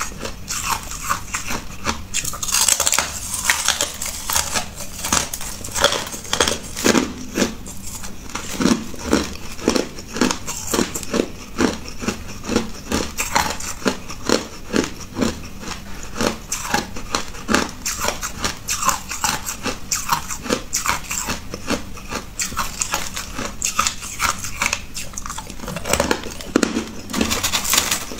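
Hard crushed ice being bitten and chewed close to a microphone: a dense, irregular run of sharp crunches, one after another.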